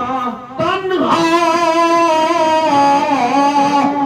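A man's voice chanting devotional verse in long, held, wavering notes, with a brief breath about half a second in before the next drawn-out note.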